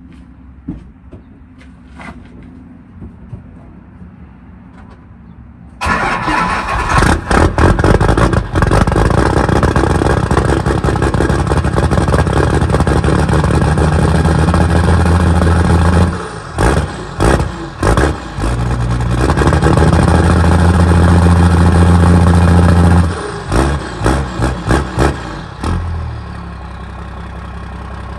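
Cold start of a second-generation Dodge Ram pickup's engine: it fires suddenly about six seconds in and runs loud and rough. It is revved and blipped several times, then settles to a steadier, quieter idle near the end.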